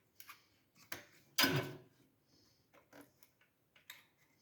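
Small metal clicks and a short scrape from a motherboard CPU socket's retention lever being unlatched and the socket opened, the loudest scrape about a second and a half in, followed by a few light ticks.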